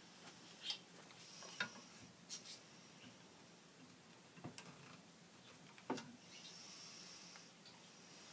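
Near silence: quiet room tone with a few faint scattered clicks and rustles, like small handling noises.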